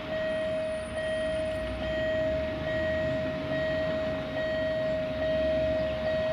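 Railway level-crossing warning signal sounding a steady high beeping tone, briefly broken about once a second, as the crossing barrier comes down to warn of an approaching train.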